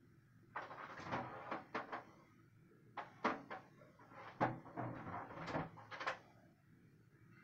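A run of knocks, clicks and rustles from objects being handled or moved, in two clusters about a second and a half apart.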